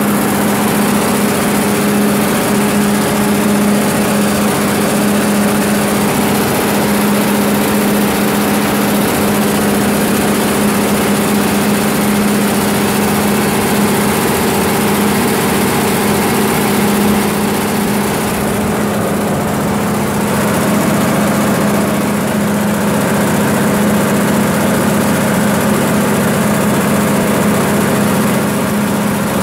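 Cummins 6B inline six-cylinder diesel engine of a 100 kW generator set running loud and steady at constant speed while the set carries an electrical load of about 120 A.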